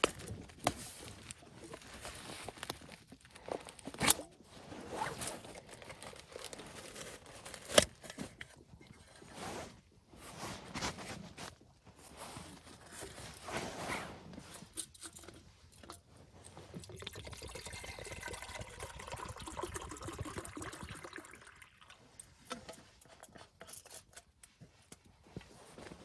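Rustling and handling of gear with a couple of sharp clicks, then liquid poured steadily for about four seconds, starting a bit past the middle.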